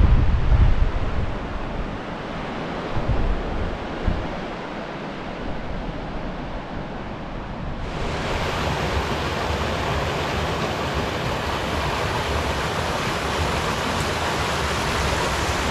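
Wind buffeting the microphone in gusts over the distant wash of surf on the sea below. About eight seconds in it switches abruptly to the steady rush of a small creek spilling over rocks in a little cascade.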